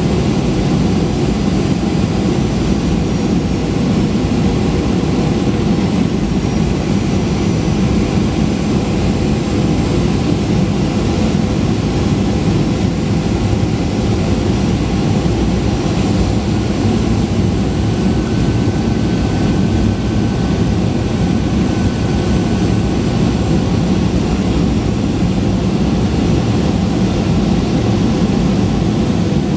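Boeing 737-800 cabin noise in flight beside its CFM56-7B turbofan engine: a steady low rumble and rush of air with faint steady engine tones, unchanging throughout.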